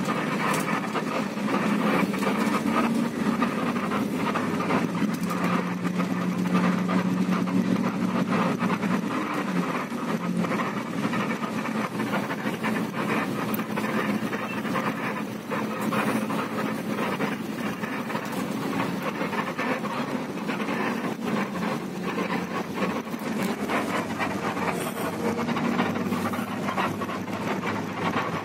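Coach's diesel engine and road noise heard from inside the cabin while the bus drives: a steady low engine drone, strongest through the first third and again near the end, over continuous rumble.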